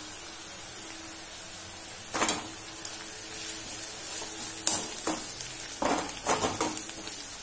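Onions and spice masala sizzling steadily in hot oil in a kadai, with a metal slotted spoon scraping and stirring against the pan in several strokes, one about two seconds in and a run of them near the end.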